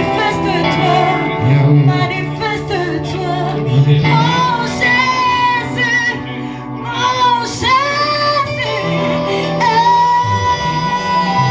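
Church worship song: voices singing over instrumental backing, ending on a long held note near the end.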